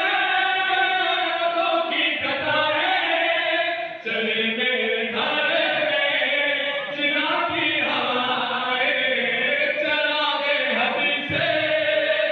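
A man's voice chanting a devotional recitation into a microphone, in long, drawn-out melodic phrases with held notes that bend in pitch, pausing briefly for breath every few seconds.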